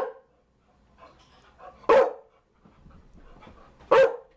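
Chow Chow dog barking: single loud barks spaced about two seconds apart, one at the start, one about two seconds in and one near the end, with faint softer sounds between them.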